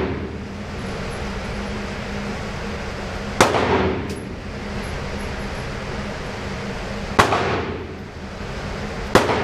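Gunshots from neighbouring lanes of an indoor shooting range: sharp single reports a few seconds apart, about three seconds in, about seven seconds in and a quick pair near the end, each with a short echoing tail, over a steady background hum.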